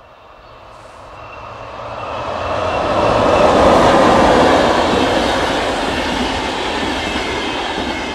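A VR Sr1 electric locomotive hauling double-deck InterCity coaches passes by: the wheel-on-rail noise swells over the first three seconds, is loudest as the locomotive goes past, then holds steady as the coaches roll by.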